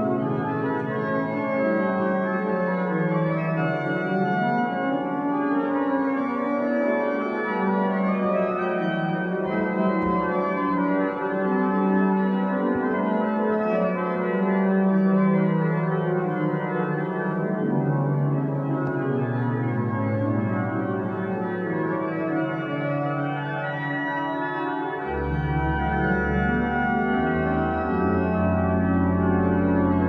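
Organ music: slow, held chords that shift gradually from one to the next, with deep bass notes joining about 25 seconds in.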